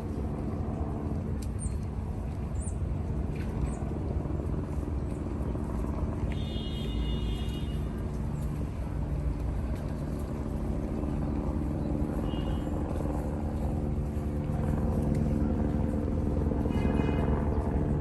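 A steady engine drone with a low pitched hum fills the background, growing a little louder near the end. Small birds give a few short chirps over it.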